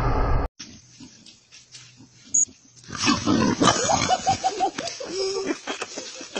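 Music cuts off about half a second in. After a quiet stretch come an animal's calls: a quick run of about five short calls, then a longer held call.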